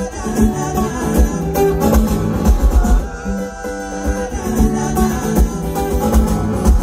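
Live acoustic guitar strumming over a steady thumping beat, played through a large outdoor festival sound system and heard from within the crowd.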